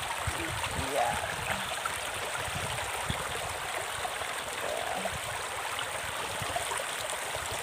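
Shallow rocky stream flowing and gurgling around the rocks and a person's legs, a steady rush of water.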